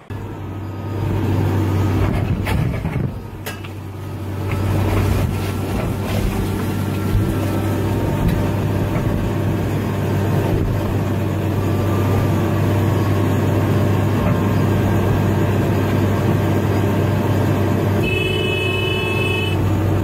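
Excavator's diesel engine running steadily, heard from inside the cab, with a few sharp knocks about three seconds in and a brief high-pitched tone near the end.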